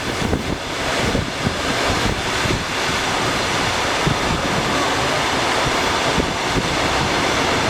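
Passenger train running, a steady rush of wheel and rail noise with wind buffeting the microphone.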